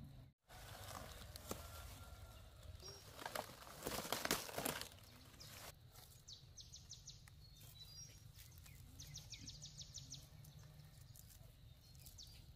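Leafy green stems rustling and snapping as they are picked and bunched by hand, loudest about four seconds in. Birds chirp in short, fast trills twice in the background.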